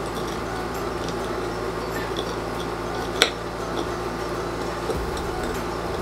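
Fork clinking and scraping on a small plate while mashing red chilies into salt: light scattered taps with one sharper click about three seconds in, over a steady low hum.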